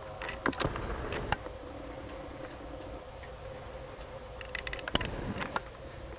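Whitetail deer coughing: two bouts of short, sharp coughs about four seconds apart, over a steady faint hum.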